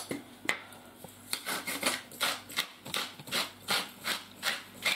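Hand pepper mill grinding peppercorns, twisted back and forth in a steady rhythm of short gritty grinding strokes, about three a second, starting about a second in.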